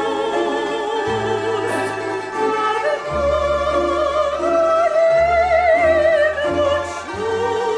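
Music: a classical operatic voice sings long held notes with wide vibrato over orchestral accompaniment with sustained bass notes.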